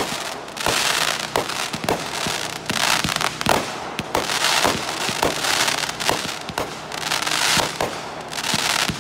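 A ground-launched consumer firework repeater (cake) firing shells one after another: a rapid series of sharp bangs, more than one a second, with stretches of hissing between them.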